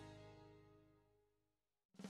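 Background music fading out over about a second, then near silence.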